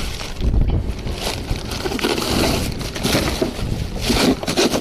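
Plastic bags of ice being shoved and rearranged in a cooler: crinkling plastic and crunching ice in a run of uneven rustles.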